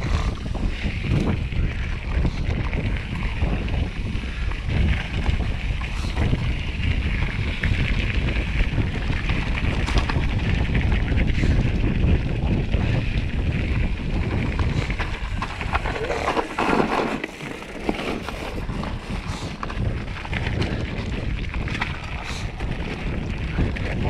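Wind rushing over the camera microphone of a mountain bike riding down a rough dirt-and-gravel trail, with the tyres crunching and the bike rattling over bumps.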